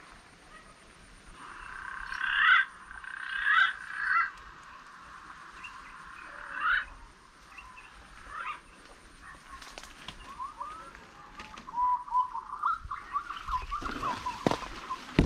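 A few loud, short rising animal calls, the first three close together and another a few seconds later, then a quicker run of smaller chirps. Rustling and knocks come in near the end.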